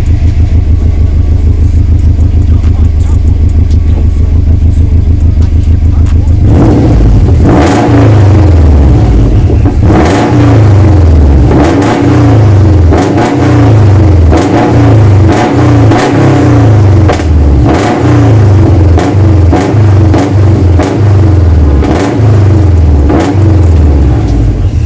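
Subaru Impreza WRX turbocharged flat-four boxer engine, freshly fitted with new exhaust headers, idling steadily for about six seconds and then revved again and again in quick blips, roughly one a second, each rising and falling back.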